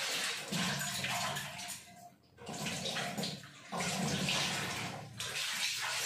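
Kitchen tap running, with water splashing in and around a steel bowl as it is rinsed. The rushing comes in spells, with brief breaks about two seconds in and again near four and five seconds.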